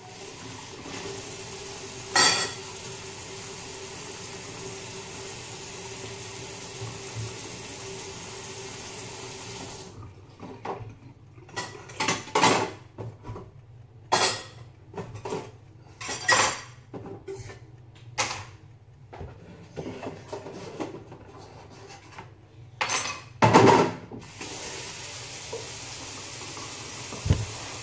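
Water running from a kitchen tap, stopping about ten seconds in. Pots and dishes then clatter and knock irregularly, loudest near the end, and the steady running-water sound returns just after.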